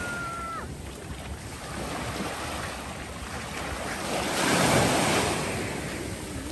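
Small sea waves breaking and washing up onto a sandy beach, one wash swelling loudest about four to five seconds in.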